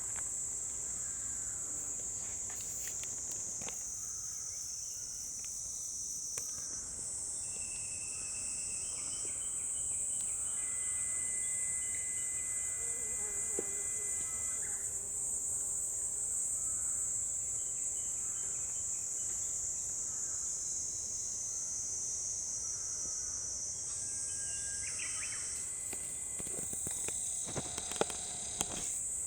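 A steady, high-pitched insect chorus that shifts pitch a couple of times, with a few fainter short tones in the middle.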